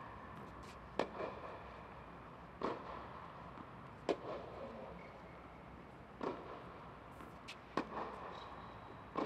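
Tennis ball struck by rackets and bouncing in a rally on an indoor hard court: a sharp pop about every one and a half seconds, each ringing briefly in the hall.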